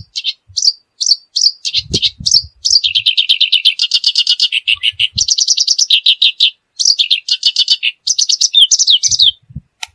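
Kerak basi reed warbler singing loudly: a run of separate short chirps, then long, fast, harsh chattering phrases, ending in a few quick down-slurred notes. A few soft low thumps can be heard under the song.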